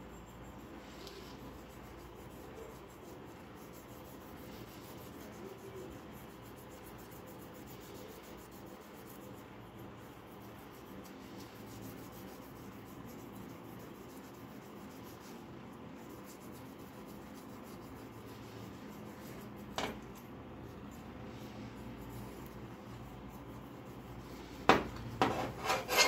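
A hand-held abrasive pad or block is rubbed back and forth along a rusty steel knife blade, making a steady scratching as it scours off the rust. A sharp knock comes about 20 seconds in, and a few louder metal clacks come near the end as the knife is handled on the steel bench.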